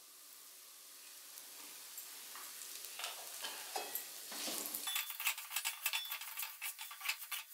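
Oil sizzling faintly in a hot metal kadai of besan-coated okra, growing over the first few seconds. From about halfway in, a wooden spatula stirs and scrapes the okra against the pan in a quick run of short strokes.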